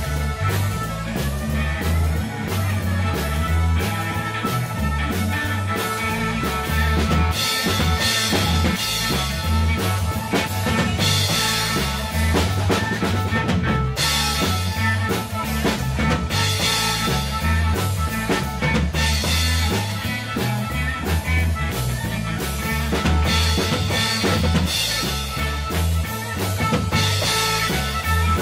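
Live rock band playing: an amplified fiddle over a drum kit keeping a steady beat, with electric guitar, and cymbals washing in and out from several seconds in.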